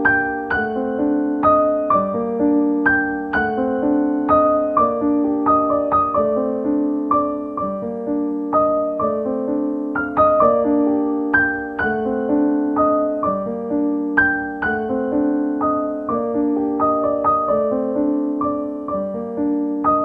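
Background piano music: a gentle melody of struck notes over repeating chords.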